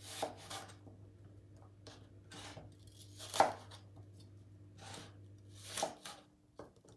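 Chef's knife slicing the cores out of quartered green apples and knocking on a plastic cutting board: several separate cuts, the loudest about three and a half seconds in.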